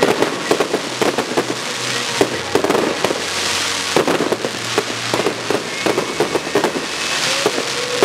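Fireworks display: many aerial shell bursts, sharp bangs coming several times a second over a constant hiss.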